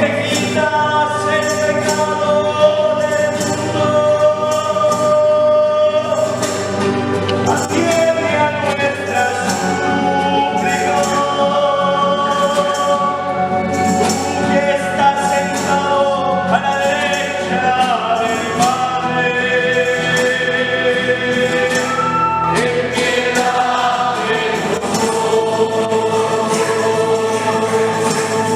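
Guatemalan church choir singing a hymn, with instruments accompanying and light percussion.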